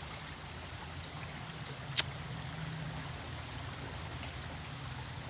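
A small creek running steadily, with a low hum underneath and a single sharp click about two seconds in.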